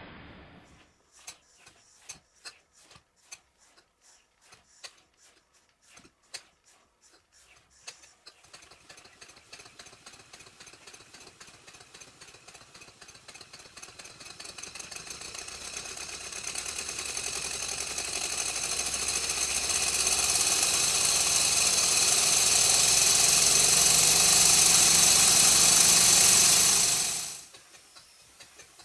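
Stuart Twin Victoria model horizontal twin engine running under its hand-worked supply tap, in a smooth, even rhythm after its crosshead and timing adjustments. Slow separate ticks at first, quickening and growing louder into a fast steady beat over about twenty seconds. Near the end the beat cuts off suddenly, leaving faint ticks as the engine coasts.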